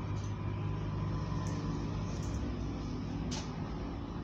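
Steady low background hum, with a few faint ticks.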